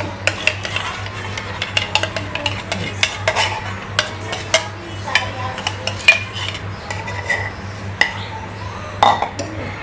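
A glass jar and a wooden spatula clinking and knocking against a non-stick wok in irregular taps as chili paste is emptied from the jar into the pan, over a steady low hum.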